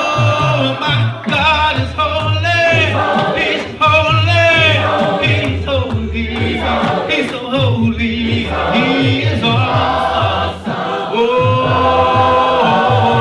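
Gospel worship music: several voices singing with steady low bass notes underneath.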